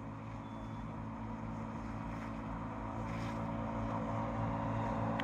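BigHorn 550 EFI side-by-side UTV engine running steadily at about 40 mph as it approaches, getting steadily louder.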